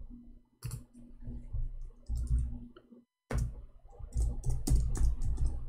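Irregular clicking and tapping of a computer mouse and keyboard while a website is searched. The sound cuts out completely for a moment a little past halfway.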